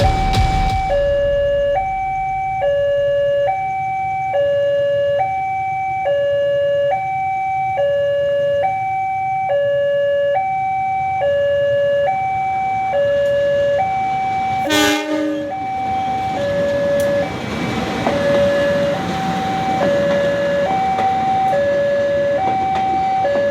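A two-tone electronic warning alarm alternating steadily between a higher and a lower note, each held a little under a second. About halfway through there is a brief loud burst, followed by growing rushing noise as a train goes by.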